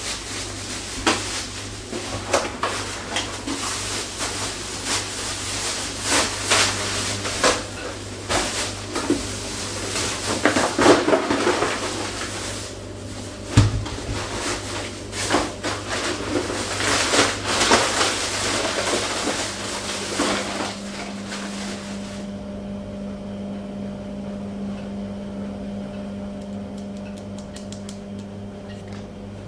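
Plastic bin bags rustling and crinkling as they are handled and lifted, with scattered knocks and one heavier thump about halfway through. Near the end the rustling stops, leaving a steady low hum.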